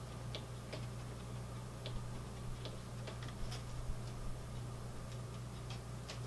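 Front-panel push buttons of a Tektronix MDO3104 oscilloscope being pressed: irregular clicks as a value is keyed in on the numeric keypad and a menu softkey is pressed, over a steady low hum.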